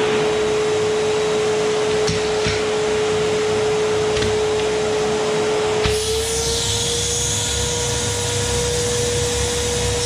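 Rowenta drum vacuum cleaner running: a steady motor whine over the rush of suction through a clear plastic tube wand, with a few faint ticks. About six seconds in the sound shifts: the whine rises slightly and a deeper rush and a higher hiss join in.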